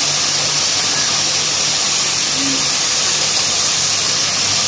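Textile yarn-winding machinery running with a steady, loud whirring hiss that does not change.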